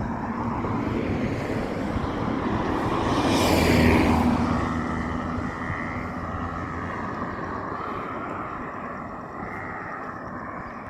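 A motor vehicle passing by: its noise swells to a peak about four seconds in, then fades slowly.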